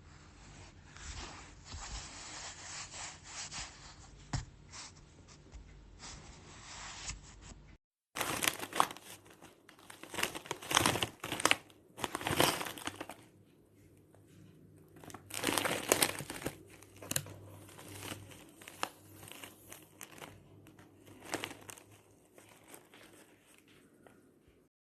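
Crinkling and rustling handling noise in irregular bursts, like a plastic wrapper or packaging being handled and pulled.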